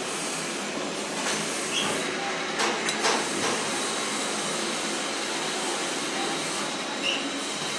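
Steady mechanical noise of workshop machinery running, with a few short metallic knocks between about one and three seconds in and another near the end.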